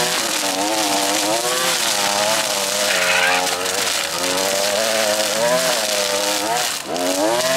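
String trimmer running at speed while cutting tall grass, its motor pitch rising and falling under load over a hiss from the line. Near the end it drops briefly as the throttle is eased, then climbs back up.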